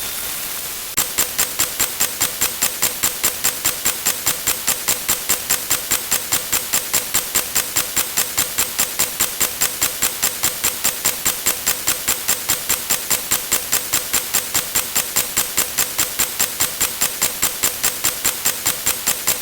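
Rapid, even ticking, nearly four ticks a second, over a steady hiss.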